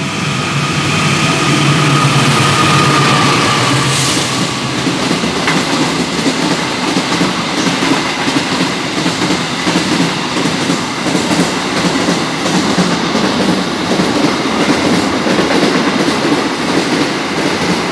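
Diesel-electric freight train passing at speed: the locomotive's engine drone comes first, then a long run of empty flat wagons rumbling and clattering steadily over the rails.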